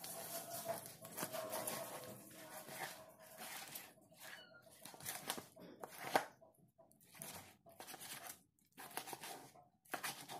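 Knife cutting a large raw fish into pieces on a cutting board: faint, irregular slicing and crunching strokes, with a sharper click about six seconds in.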